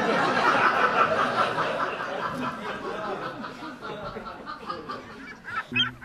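Audience laughing at a joke, loud at first and dying away over several seconds. Near the end, a gull-like squawking call starts.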